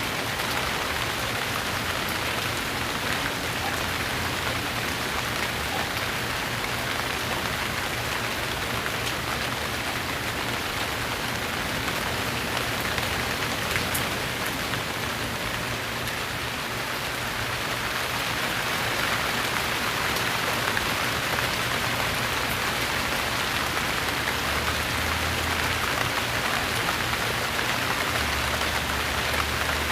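Steady rain falling, with drops pattering on a surface.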